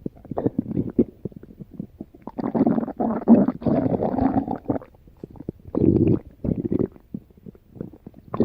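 Stomach growling and gurgling in irregular bouts: a long gurgling rumble from about two seconds in to nearly five, a shorter one around six seconds, and scattered small pops and clicks in between.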